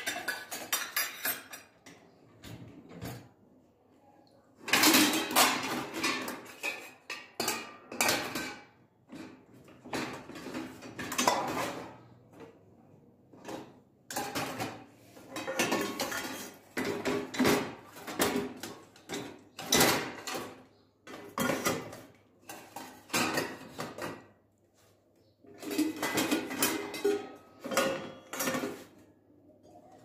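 Stainless steel pots, pans and lids clattering and clinking against each other and the dishwasher's wire racks as they are loaded in, in irregular bursts with brief pauses.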